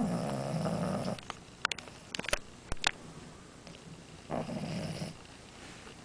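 French bulldog snoring: two long, rattling snores about four seconds apart, with a few sharp clicks in between.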